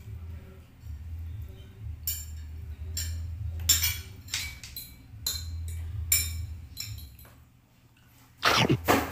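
Metal cutlery clinking and scraping against a plate as food is scooped up, a series of sharp clinks in the middle of the stretch over a low steady hum. A short, loud vocal sound comes near the end.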